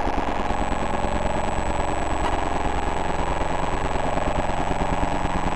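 Remote-control light signals turned into sound by a light-to-sound device: several layered, rapidly pulsing electronic buzzes forming a dense, steady drone. A thin, high steady whistle joins about half a second in.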